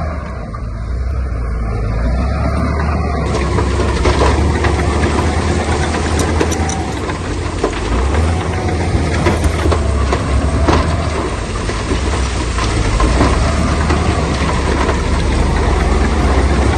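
A heavy diesel engine of earthmoving machinery running steadily, with scattered knocks and clatter over it.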